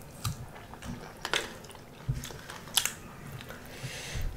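Close-miked chewing and lip smacking of two people eating fried pork and rice by hand, with a few sharp clicks, the loudest about a second and a half in and near three seconds.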